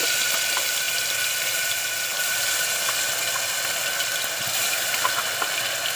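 Wet onion-garlic paste sizzling in hot mustard oil in a steel pressure cooker, a steady loud hiss as it fries, stirred with a spoon.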